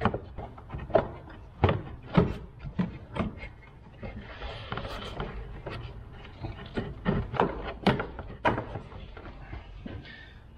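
Plastic radiator fan shroud being wiggled out past the radiator hose: irregular knocks and clatters, with a short scraping rub about four seconds in.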